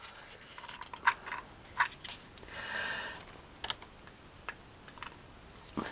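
Scattered sharp clicks and light taps from handling pieces of polystyrene foam and a hot glue gun, with a short scratchy rubbing sound near the middle.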